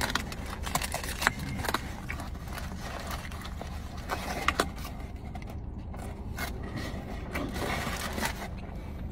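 Hands turning and handling a cardboard sandwich box: scattered scrapes, rubs and light taps on the cardboard, over a steady low hum.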